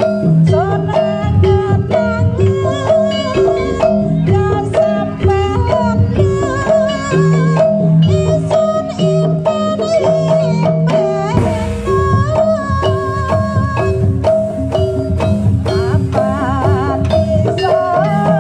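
Jaranan buto music: a fast, repeating figure of pitched metal percussion notes over steady drum strokes, with a wavering melody line above.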